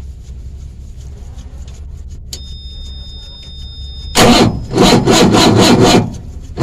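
Diesel engine of a JCB 432ZX loader being cranked without firing: a low steady hum, a steady two-tone beep from about two seconds in, then from about four seconds in loud rhythmic rasping pulses, about three to four a second. The engine will not start because of air in its fuel system.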